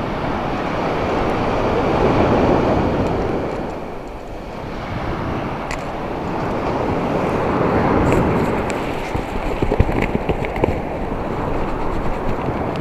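Sea surf washing onto a sandy beach, swelling and easing twice in slow surges, with a few light clicks near the end.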